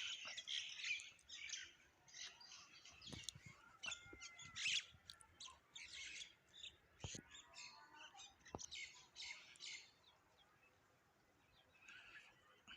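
Small birds chirping, many quick overlapping chirps and short twittering phrases that thin out near the end.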